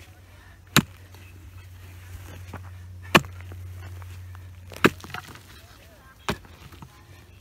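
A mattock striking hard, dry, stony soil four times while digging a trench, single sharp blows one and a half to two and a half seconds apart.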